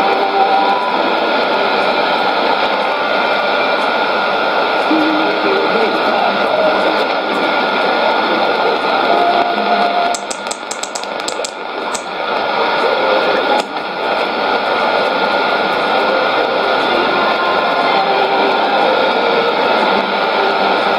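Shortwave AM broadcast on 11835 kHz played through a Sony ICF-2001D receiver's speaker: heavy static and hiss with faint music from the broadcast underneath. About ten seconds in there is a short run of rapid clicks and a brief dip in the signal.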